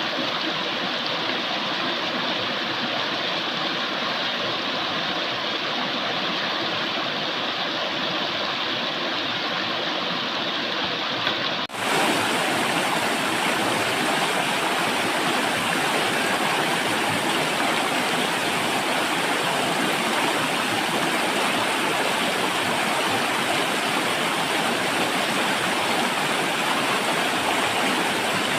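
Steady rushing noise that changes abruptly about twelve seconds in, becoming louder and brighter.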